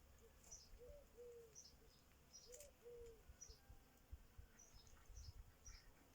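A dove cooing in two short phrases of low, soft coos, with small birds chirping high and thin throughout.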